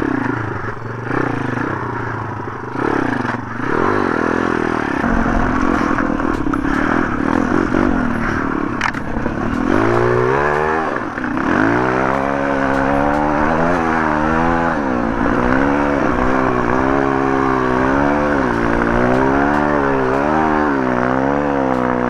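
MRF 140 RC pit bike's 140 cc single-cylinder four-stroke engine running under load on a rough trail. It pulls at fairly steady, low revs at first; from about ten seconds in it revs up and down again and again as the throttle is worked. A few short knocks come from the bike over the ground.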